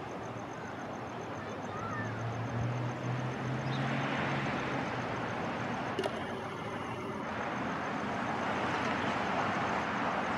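Road traffic passing near a railway crossing: a steady hiss that grows louder about four seconds in, with a low engine hum early on and a single sharp click about six seconds in.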